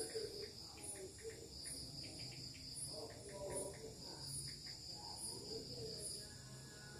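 Crickets chirping: a steady high trill with a higher chirp repeating about once a second.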